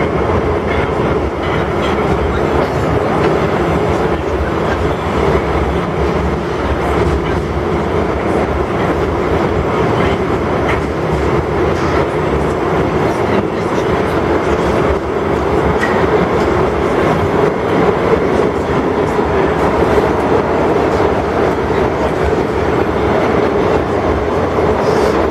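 Metro train running through a tunnel, heard from inside the carriage: a loud, steady rolling noise of wheels on rails and the car body.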